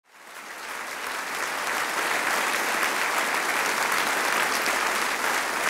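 Audience applauding, rising in level over the first second and a half and then holding steady.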